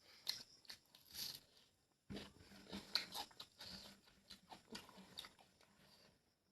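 Close-miked chewing and wet mouth smacks from eating curry and rice, a run of short, irregular clicks with a brief pause about two seconds in.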